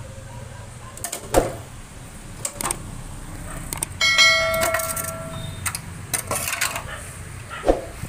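Sharp plastic clicks and knocks as the plastic bottom cover panel of a front-load washing machine is pried loose by hand, the loudest about a second in. About four seconds in, a bell-like chime rings for a second and a half, the sound effect of a subscribe-button animation.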